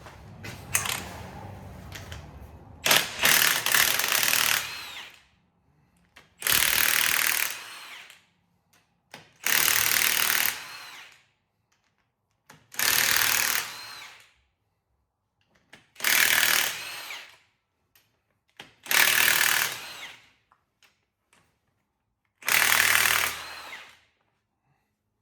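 Power impact wrench hammering loose the cylinder head bolts of a tractor's diesel engine. It runs in seven bursts of about one and a half to two seconds each, a few seconds apart.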